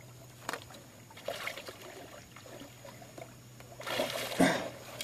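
Water splashing and sloshing as a large blue catfish is brought up in a landing net at the side of a boat, in short bursts, the loudest near the end with a sharp thump.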